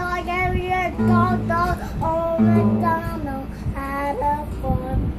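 Young girl singing a made-up tune, her voice sliding up and down in pitch, with low steady notes sounding under it twice.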